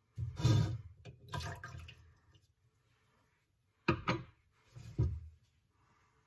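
Liquid splashing in a plastic measuring jug as film developer is poured into water and stirred in. Two sharp knocks of plastic on the jug come about four seconds in, followed by another short splash.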